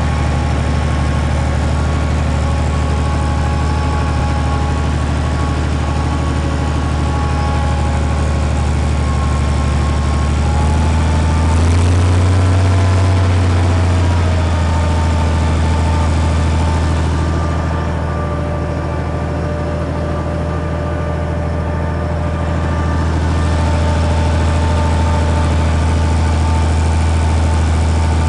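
Roadless 6/4 tractor's diesel engine running steadily under load while pulling a plough. The engine note rises and gets louder about twelve seconds in, and eases and quietens for a few seconds around twenty seconds in.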